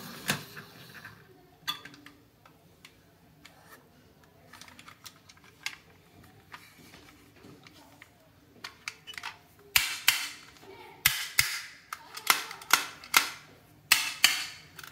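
Plastic toy dump truck being handled, giving sharp plastic clicks and clacks: a few scattered ones, then a quick run of louder ones over the last five seconds.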